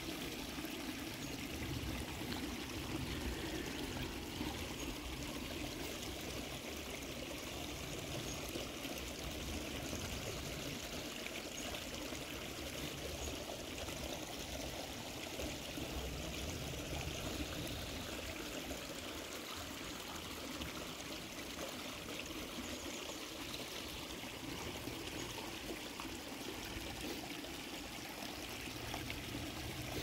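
Shallow creek water flowing steadily over a rocky bed.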